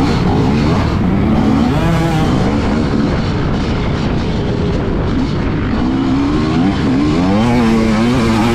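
Motocross dirt bike engine under hard throttle, its pitch repeatedly climbing and dropping as the rider works the throttle and gears, with a quick run of rising revs near the end.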